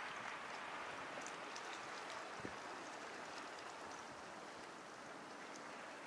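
Small sea waves washing over the shore, a steady fizzing hiss with scattered faint ticks of water.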